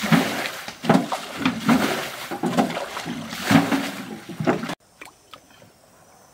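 Water being bailed by hand out of a shallow muddy ditch with a square tin can: repeated scoops and loud splashes as each canful is flung onto the bank, draining the pool. About five seconds in the splashing cuts off suddenly, leaving a faint steady high hum and a few small clicks.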